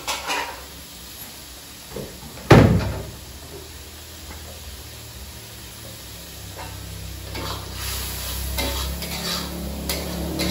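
Hot oil sizzling in a wok, with one heavy thud about two and a half seconds in. In the second half a metal spatula scrapes and stirs in the wok, and the sizzling grows louder toward the end.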